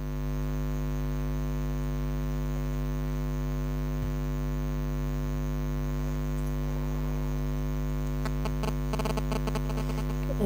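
Steady electrical mains hum, with a few faint light clicks near the end.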